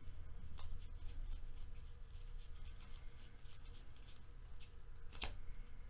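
Topps Series 1 baseball cards being flipped through by hand, one behind another: faint, scattered flicks and rubs of card edges, with one sharper snap about five seconds in.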